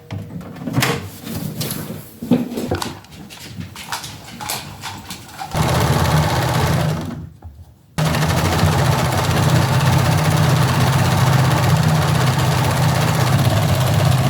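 Singer sewing machine being handled with scattered clicks and knocks, then its motor running and stitching: a short run about five seconds in, a brief stop, and a long steady run from about eight seconds on.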